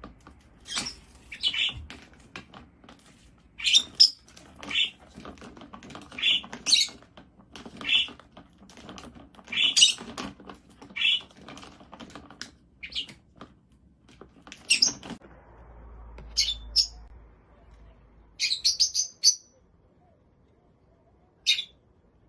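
A parrot giving short, sharp chirps about once or twice a second, with a quick run of chirps near the end and light tapping and rustling between calls.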